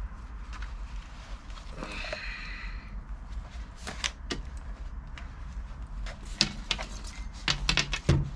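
A Fox Dropframe mountain-bike helmet being taken off and handled: scattered clicks and knocks from its plastic shell and straps, with a cluster of knocks near the end as it is set down on a glass tabletop.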